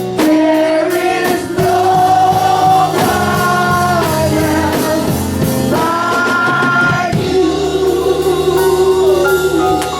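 Gospel worship music: voices singing long held notes over a band with drums.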